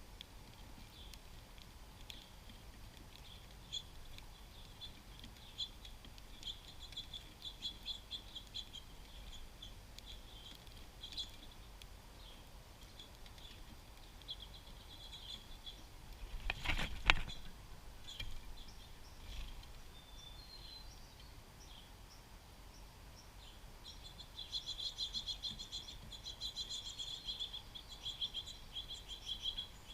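Small songbirds at a feeder chirping and twittering on and off, with a dense bout of twittering near the end. Roughly halfway through a single sharp knock stands out as the loudest sound.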